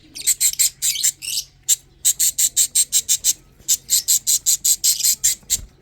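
Lovebird chicks calling in a fast run of short, raspy chirps, about six a second, with a brief pause partway through.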